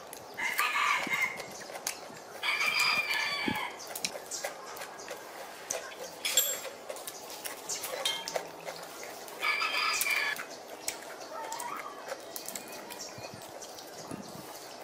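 Roosters crowing, three separate crows of about a second each, at about half a second, two and a half seconds and nine and a half seconds in, with faint small clicks between them.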